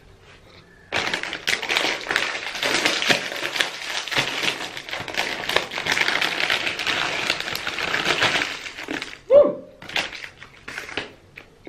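Crispy chips being crunched and chewed close to the microphone: a dense crackling run of small snaps that starts about a second in and lasts about eight seconds.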